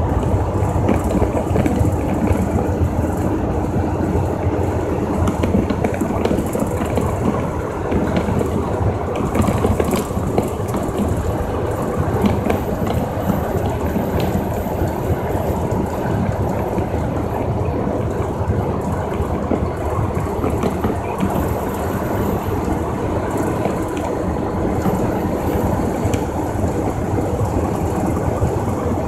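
Inside a semi-truck cab at highway speed: a steady drone of engine and road noise, with scattered light rattles and clicks from the cab.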